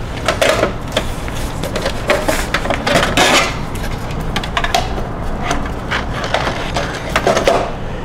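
A computer power supply being slid out of a sheet-steel PC chassis: a run of metal scrapes, clicks and knocks as it comes free and is handled.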